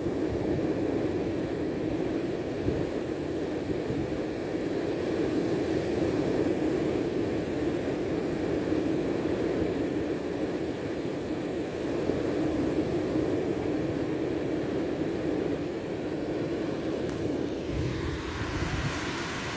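Steady, even low drone of engine-like noise. Near the end a higher hiss joins it and a few low thumps are heard.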